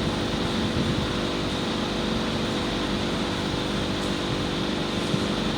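Steady mechanical hum with several low steady tones from the hose deformation testing machine running during a squeeze test.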